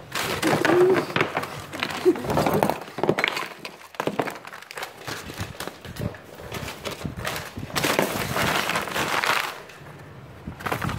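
Sheets of paper being crumpled and crinkled by hand, with short knocks of objects against the desktop. The crackling comes in two spells, the second starting about eight seconds in.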